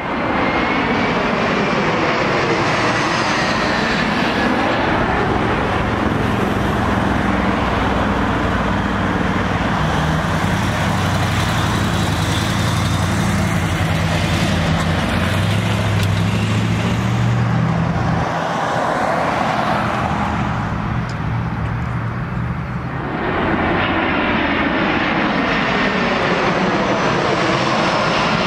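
Jet airliner engines at takeoff power: a loud, steady jet noise with low rumble and sweeping changes in tone as the aircraft climbs past. It eases for a few seconds about two-thirds of the way through, then swells again.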